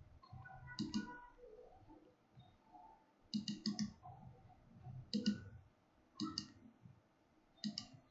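Computer mouse buttons clicking: about five short groups of quick clicks, spaced irregularly across the stretch.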